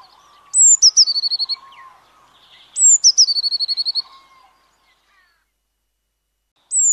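Eurasian blue tit singing: three song phrases, each a high thin note sliding down, followed by a quick trill of repeated notes. There is a silent gap before the last phrase.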